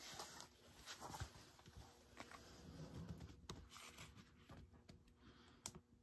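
Near silence: room tone with faint scattered clicks and rustles, and a faint low steady hum.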